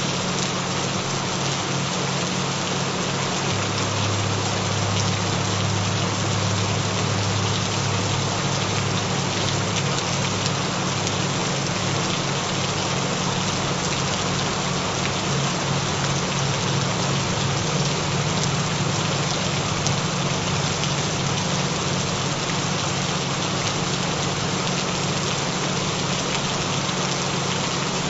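Steady gentle rain, an even hiss of falling drops, with low steady tones humming underneath: the added frequency tones of a binaural-beat track.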